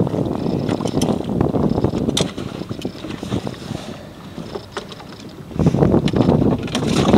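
Wind buffeting the microphone on a small open boat at sea, coming in gusts that are loud at first, ease off in the middle, and pick up again near the end, with a few sharp knocks from gear being handled on deck.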